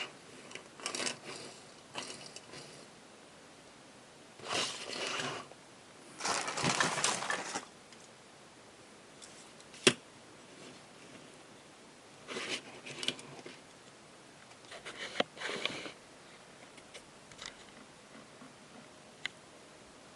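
Rummaging through a bag of small old toys: irregular bursts of rustling, the two longest about five and seven seconds in, with scattered sharp clicks and knocks of the toys being picked up and handled.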